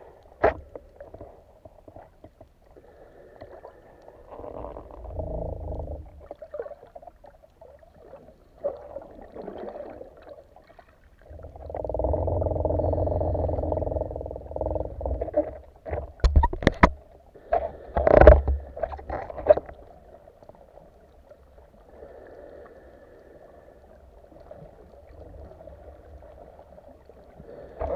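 Muffled underwater noise heard through a waterproof camera housing on a speargun: swells of rushing water movement, louder for a few seconds near the middle. This is followed by several sharp knocks.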